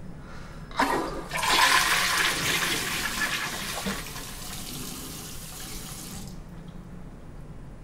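A short knock, then a loud rushing, water-like hiss that swells quickly, slowly fades, and cuts off sharply about six seconds in.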